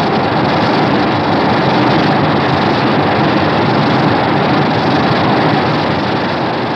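Fan-made Godzilla Jr. sound effect: a loud, steady rushing noise with no clear pitch, starting to fade out near the end.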